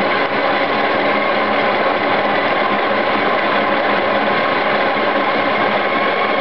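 Coffee grinder running steadily, grinding coffee into the portafilter's single-wall filter basket.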